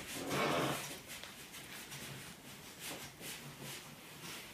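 Soft rustling and brushing, loudest for about half a second at the start, then a few faint ticks, as a person lying on a foam exercise mat slides their legs out straight along it.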